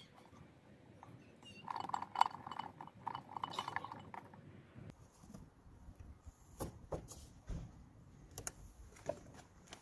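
Light clinks and clicks of the plastic oil filter housing cap on a VW 1.9 TDI engine being unscrewed by hand and lifted out, with a dense run of clinks about two to four seconds in and a few sharper clicks later.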